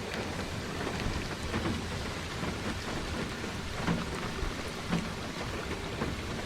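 Steady rain falling, with many small drops ticking close by, during a thunderstorm.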